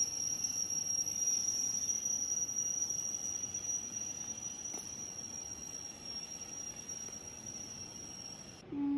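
Steady high-pitched insect call that stops abruptly near the end. A short rising animal-like call begins just as it stops.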